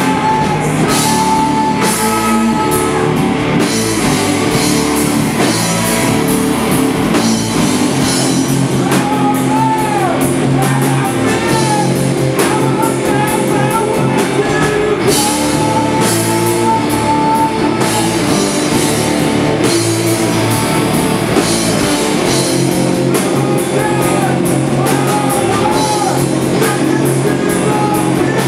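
Live stoner rock band playing loud, with electric guitars and a drum kit and a man singing into the microphone.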